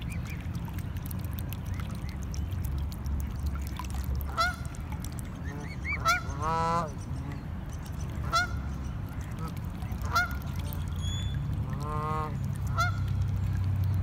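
Canada geese honking at intervals: several short honks and two longer, drawn-out calls. Under them runs a steady low rumble that grows louder near the end.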